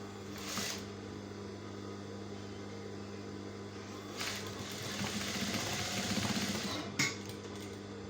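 Sewing machine stitching in a run of about three seconds from about four seconds in, with a fast even needle rhythm over a steady motor hum, ending in a sharp click.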